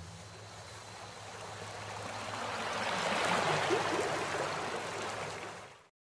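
Logo-intro sound effect: a stream-like water noise that swells for about three and a half seconds, then fades out shortly before the end.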